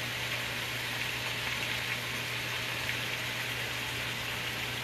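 Hot oil sizzling steadily as small pieces of chicken thigh fry, with a steady low hum underneath.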